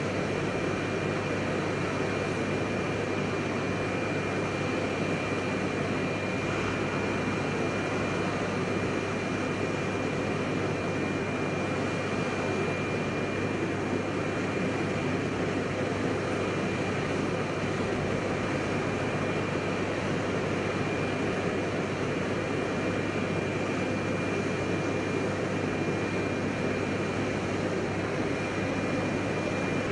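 Parked military cargo aircraft with its turbine machinery running: a steady high whine over a constant low hum and rush.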